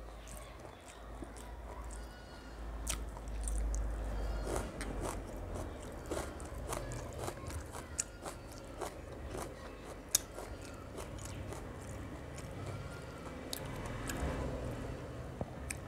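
Close-up chewing of rice and chicken kosha eaten by hand, with many small wet mouth clicks and smacks scattered throughout.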